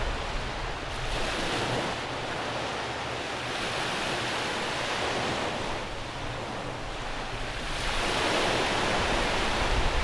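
Small waves breaking and washing up a sandy beach. The surf swells three times, about a second in, around four seconds and around eight seconds, over a steady hiss of sea.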